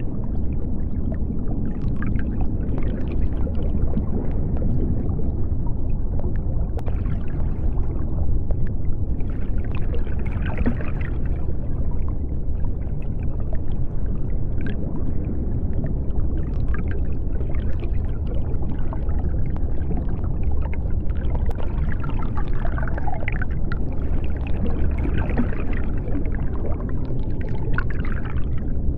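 Underwater ambience: a steady deep rumble with bubbling that swells now and then and scattered sharp clicks.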